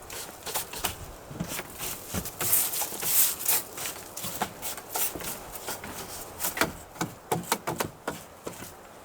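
Footsteps and scattered knocks on wooden deck boards, with a stretch of scraping hiss about two and a half seconds in.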